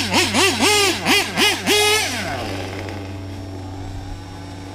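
Nitro RC truck's glow-fuel engine revved in quick throttle blips while being tuned, about six in the first two seconds. It then drops back to a steady idle.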